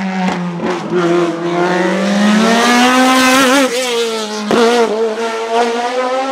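Hillclimb sports prototype race car accelerating hard past at full throttle, its engine note climbing in pitch for the first few seconds. About four and a half seconds in there is a sharp crack and a step in pitch, like a quick gear change, before the engine holds a high steady note.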